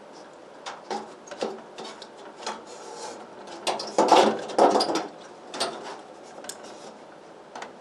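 Knocks, scrapes and rattles of a window air conditioner unit being handled and pushed into its wall sleeve, irregular and busiest about four to five seconds in.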